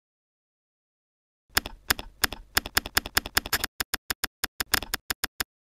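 A quick run of sharp clicks like typing on keys, about six a second, starting after a second and a half of dead silence and stopping just before the end.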